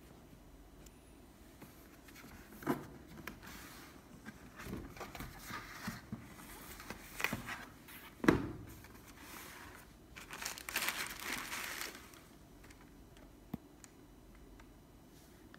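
A cardboard shoebox being opened and the tissue paper inside crinkling as a sneaker is handled and lifted out, with several knocks of cardboard, the loudest about eight seconds in, and a run of paper crinkling a couple of seconds later.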